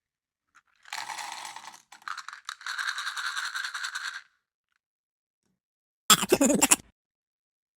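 Rapid rattling clicks for about three seconds, like fast typing, then after a pause a short, loud sound effect lasting under a second.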